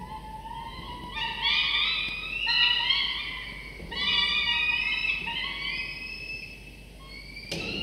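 Peregrine falcon chicks giving drawn-out, whistling begging calls, several notes overlapping at once, as they are fed. The calls are loudest in the first half, and there is a single sharp knock near the end.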